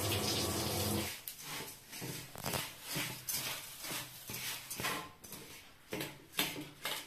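Tap water running into a steel sink for about a second, with a low hum, cutting off suddenly. Then a hand tosses dry puffed rice in a steel bowl: crisp rustling strokes about twice a second.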